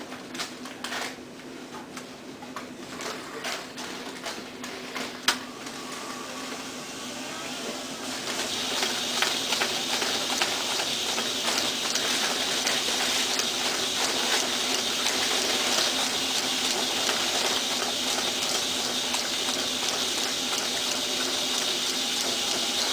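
HEFTER ES 300 envelope sealing machine humming, with scattered clicks as envelopes are loaded into the feeder. From about eight seconds in, a steady, fast rustling whir with many small ticks as envelopes run through the rollers and pile up in the output tray.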